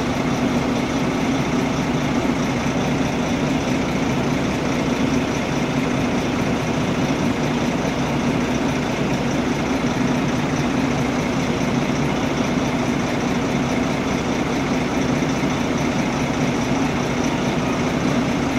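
Tour coach's diesel engine idling with a steady low hum.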